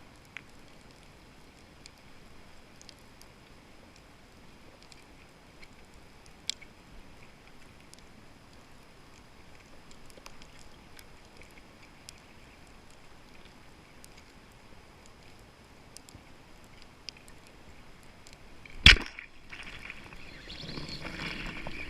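Underwater: faint background with scattered small clicks, then about nineteen seconds in a single loud, sharp crack of a speargun firing, followed by a rush of noisy sound.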